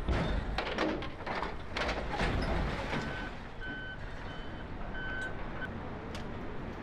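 Heavy machinery clearing wrecked steel railcars: several sharp metal clanks and scrapes in the first couple of seconds, then a reversing alarm beeping about five times, over the steady low rumble of diesel equipment running.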